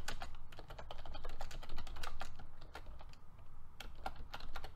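Typing on a computer keyboard: a run of uneven keystrokes with short pauses between them.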